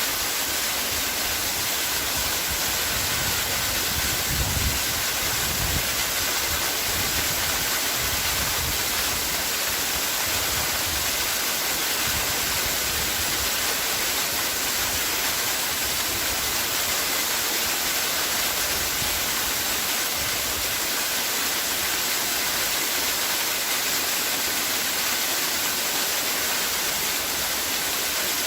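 Waterfall: water pouring and splashing in a steady rush, with low rumbles coming and going about four to six seconds in.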